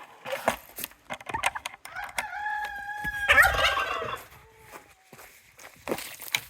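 A rooster crows once, a long held call starting about two seconds in that trails off, with a short burst of turkey gobbling over the middle of it.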